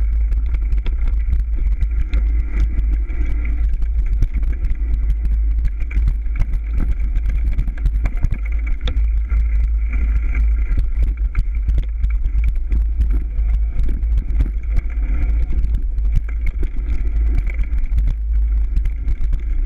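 Mountain bike ridden fast along a dirt forest single-track: a steady low wind-and-vibration rumble on the microphone, with many small knocks and rattles as the tyres run over roots and leaves and the bike shakes.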